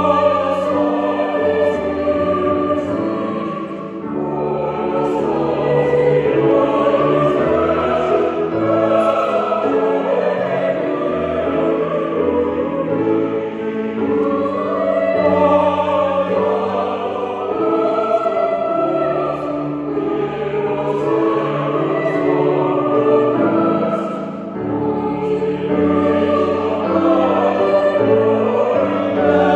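Choir singing a sacred piece in several parts, in long held phrases with short breaks between them.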